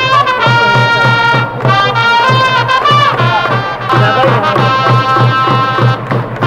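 Baseball cheering-section band: trumpets playing a held-note fight-song melody over a steady bass-drum beat, a little over two beats a second.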